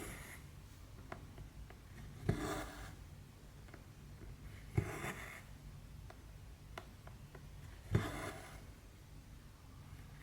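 Cross-stitch needle and thread worked through 14-count Aida fabric: a small tap as the needle pierces the cloth, then a short rasp of thread drawn through the weave. This happens three times, roughly every three seconds, with faint ticks between.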